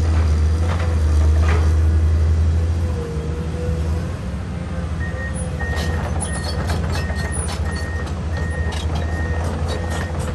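Komatsu PC210 excavator's diesel engine running steadily; about halfway through its alarm starts beeping at one pitch, roughly twice a second, over sharp knocks.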